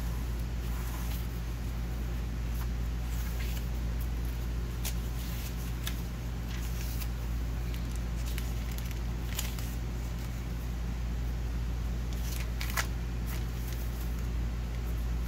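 Paper journal pages being handled and turned, heard as scattered soft rustles and light clicks, with a cluster a little before the end. A steady low hum runs underneath throughout.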